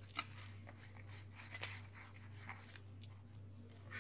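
Faint scratchy rustling and light taps of a small plastic sieve being shaken over a blender jar as baking powder sifts through, with one sharper click about a quarter-second in.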